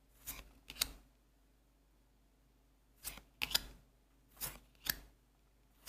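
Japanese trading cards being handled and flipped through: a few short, crisp snaps and flicks in small clusters, with near silence between.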